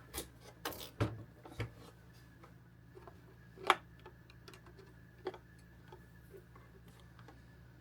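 A handful of sharp mechanical clicks and clunks from a 1970s Lafayette RK-D750 cassette deck as a tape is loaded and its transport keys are worked, the loudest about halfway through, over a steady low hum.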